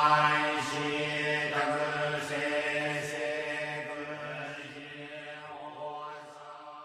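Chanted mantra held on one low, steady note, fading out gradually to silence.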